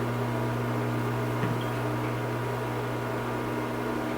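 A steady electrical hum with a buzzy stack of overtones, with a faint click about a second and a half in.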